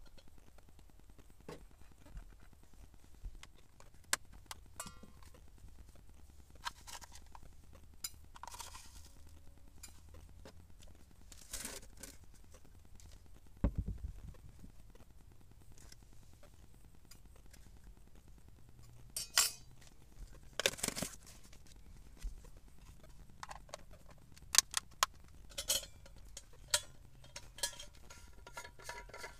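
Coffee being made by hand: a spoon clinking against a metal mug, with a coffee jar and a vacuum flask being opened and handled, as scattered clinks, knocks and short scrapes. A dull thump comes about halfway, and the louder clinks and scrapes fall in the second half.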